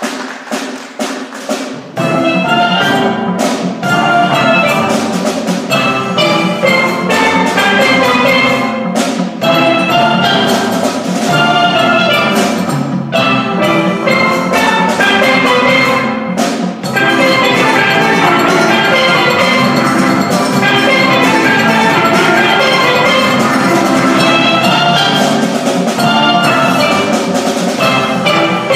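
Steel pan band playing a medley, many pans sounding together over a drum beat. The full band comes in about two seconds in.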